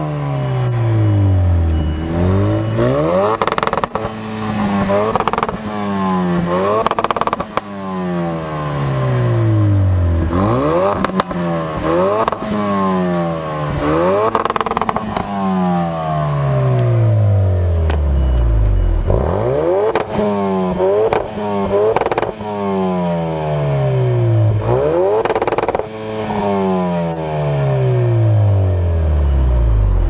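Ford Focus RS's turbocharged 2.3-litre four-cylinder EcoBoost engine revved hard and repeatedly while standing, heard at the exhaust tailpipes. Each blip climbs quickly and falls back more slowly, about a dozen times.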